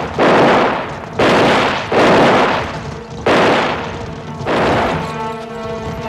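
Gunfire volleys: about five loud shots roughly a second apart, each with a long echoing tail. Music comes in near the end.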